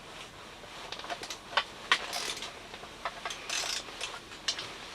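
Scattered metal clicks and two short scrapes as the sharpened blades are fastened back onto a hand ice auger and the bolts tightened.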